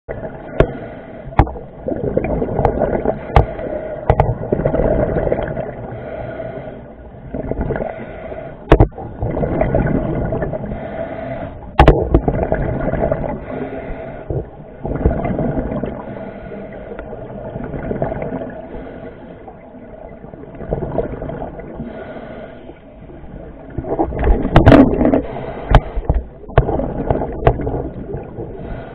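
Scuba diver breathing through a regulator, heard through an underwater camera housing: swells of bubbling exhaust every few seconds, with sharp clicks between them.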